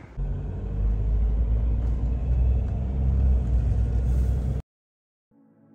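Steady low rumble of a car's engine and tyres heard from inside the cabin while driving at road speed. It cuts off suddenly near the end.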